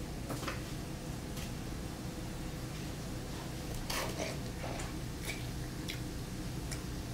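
Scattered light clicks and knocks of things being handled in a kitchen over a steady low hum, the loudest a short cluster about four seconds in.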